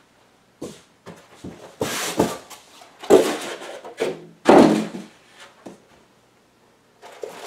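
A white foam packing piece dragged out of a large cardboard box and set down: a string of scrapes and hollow thunks of foam and cardboard. A steady rustle starts near the end.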